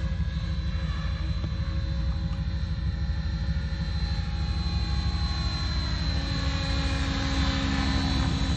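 Synergy E5 electric RC helicopter flying: a steady high-pitched whine over a low rushing noise.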